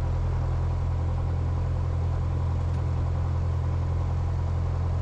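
Steady low drone with a constant hiss in the cockpit of a Cessna 172, unchanging throughout.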